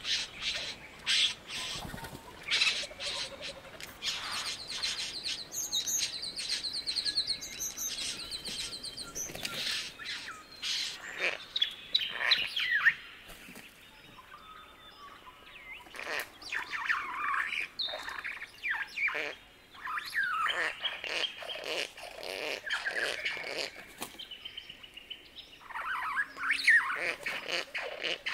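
Male satin bowerbird giving its buzzing, mechanical churring courtship song, with rapid ticking rattles, then, about halfway through after a short lull, a run of squeaks, squelches and short whistles that slide up and down in pitch.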